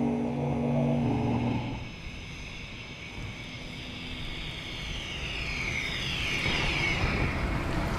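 MEGA electric van driving by: a steady, pulsing hum stops about a second and a half in. Then tyre and road noise grows as the van approaches, with a high whine gliding down in pitch near the end.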